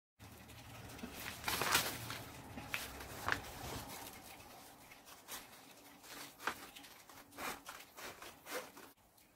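Scissors snipping through a sheet of paper: a string of sharp, irregularly spaced snips with paper rustling between them.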